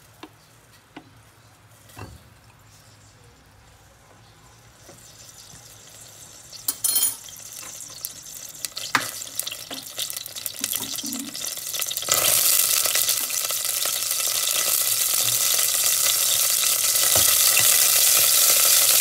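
Cooking oil heating in a stainless steel pot: a few light clinks of a spoon against the pot at first, then scattered crackles that build from about halfway into a loud, steady sizzle that keeps getting louder.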